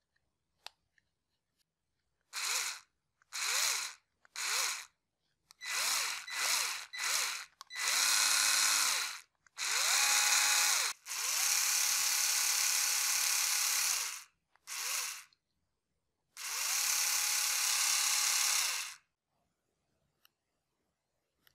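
Worx WX240 4V mini cordless electric screwdriver running unloaded in about ten separate bursts, switched on and off by its button: short bursts at first, then longer runs of one to three seconds. Each run starts with a brief rising whine as the motor spins up, then holds a steady pitch. A few faint clicks come before the first run.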